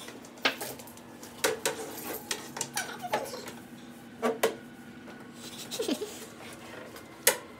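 Irregular sharp taps and clinks of a thin metal rod knocked against a hard floor and walls by a blindfolded person feeling their way, with a louder single knock near the end.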